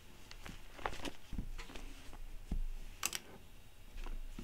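Scattered light clicks and taps from small handling at a desk, with two soft low thumps near the middle and a sharper click about three seconds in.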